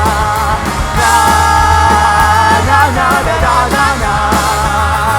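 Punk rock band playing loud, with singing over the band.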